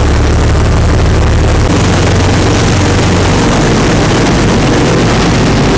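Party fishing boat's engines running under way, with wind and water rushing; the engine note shifts a little under two seconds in.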